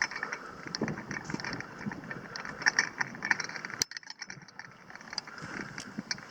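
Irregular light clicking, clinking and rustling of gear being handled, with one sharp click about four seconds in followed by a short quieter gap.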